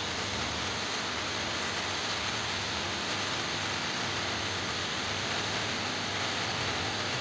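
A steady, even hiss with no tone or rhythm.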